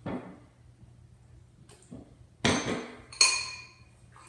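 A stirring utensil clinking against a bowl as thick slime is mixed hard: four sharp knocks with a short ring, the loudest two about two and a half and three seconds in.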